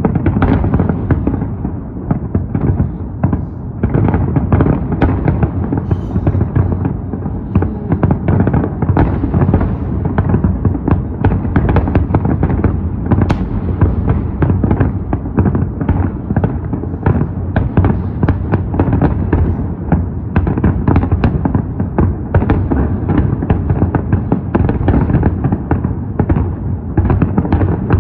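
Fireworks display going off in a dense, continuous barrage of booms and cracks, many bursts a second, with no let-up.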